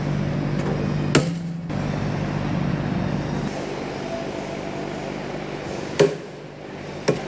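Shipping straps on an engine crate being cut with hand snips: three sharp snaps as the straps give way, one about a second in and two close together near the end.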